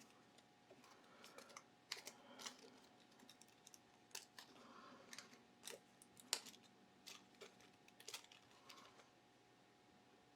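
Faint, irregular small clicks and light scraping of small model-kit parts being handled while a tiny screw is fitted.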